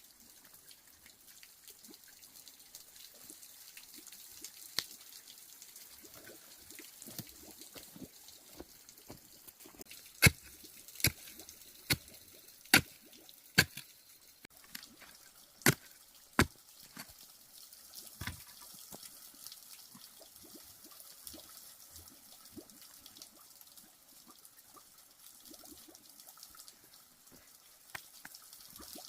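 A run of sharp knocks, seven in about six seconds, loudest near the middle, over a faint background of small ticks and taps.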